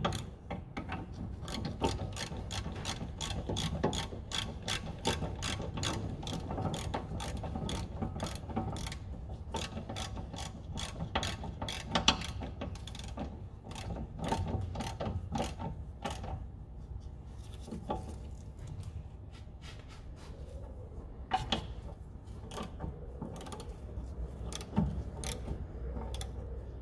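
Ratchet wrench clicking as it tightens the brake caliper carrier bolts. A fast run of pawl clicks comes first, then slower, sparser clicks with a few louder knocks.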